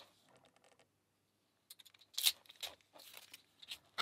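Hands handling a freshly unwrapped lock and its packaging: a quiet stretch, then a cluster of short rustles and light clicks from about a second and a half in, loudest a little after two seconds.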